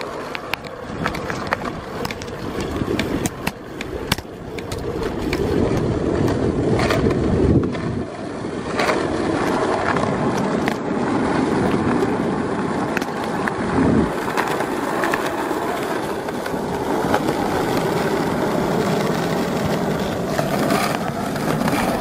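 Skateboard wheels rolling over asphalt, a continuous rumble with scattered clicks and knocks as the wheels cross cracks and rough patches.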